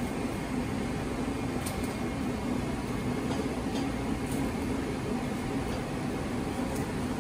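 Steady hum of commercial kitchen machinery, with a constant low tone, and a few faint ticks over it.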